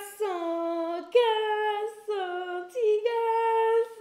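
A high voice singing or cooing about four held notes in a row, each under a second long, several sliding slightly down in pitch.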